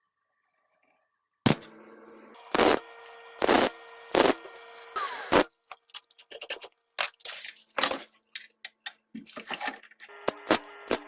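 Metal parts knocking and clinking together, with the metal ringing after each knock. The knocks come about a second apart at first, then give way to quicker, lighter clinks.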